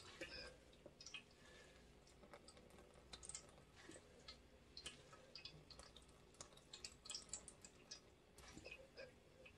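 Faint, scattered small wet squelches, drips and clicks as handfuls of blanched mulberry shoots are squeezed by hand to wring the water out.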